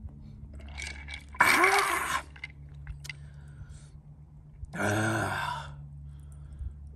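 A man's two drawn-out, satisfied 'ahh' exhalations after a gulp of a drink: one about a second and a half in, a second near five seconds.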